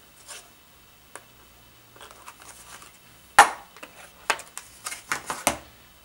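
Plastic clamshell tray from a new M.2 SSD's retail box being opened by hand: light rustling, then one sharp plastic snap about three and a half seconds in, followed by several lighter plastic clicks as the tray is handled.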